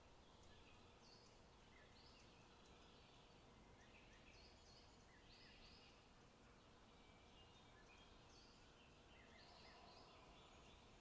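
Faint forest birdsong: small birds giving short chirping notes repeated throughout, over a low steady hiss.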